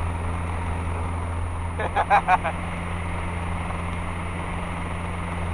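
Continental O-200 four-cylinder engine and propeller of a 1969 Cessna 150J running steadily in flight, a constant drone heard inside the cabin. A brief voice cuts in about two seconds in.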